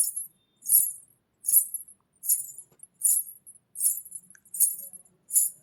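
Ankle bells (gajjelu) jingling in an even rhythm: about eight short, bright shakes, a little more than one a second, each ringing briefly away.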